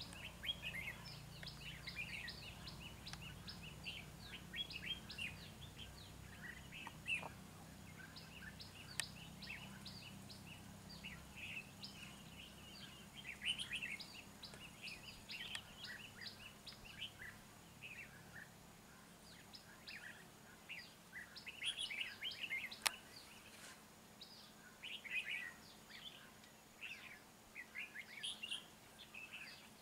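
Red-whiskered bulbuls calling in quick, short chirps, clustered and repeated throughout. A sharp click sounds once about a third of the way in and again, louder, about three-quarters in.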